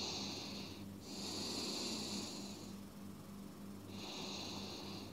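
A person breathing slowly and deeply while holding a yoga stretch, with three long, soft breaths. One ends about a second in, a longer one follows, and another starts near the end. A faint steady hum runs underneath.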